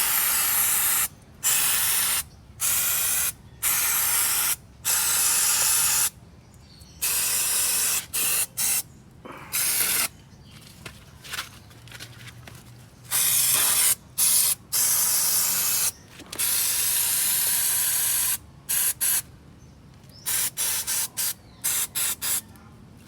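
Aerosol can of brake parts cleaner spraying onto a car's disc brake in a string of short bursts of hiss, each starting and stopping sharply; most last under a second, a few are held for a second or so.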